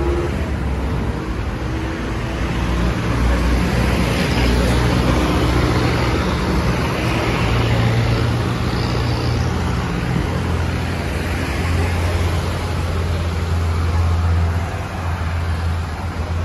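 Street traffic passing on a busy multi-lane road: cars and vans driving by with tyre noise and engine hum. A low engine drone builds past the middle and drops off near the end as a vehicle goes by.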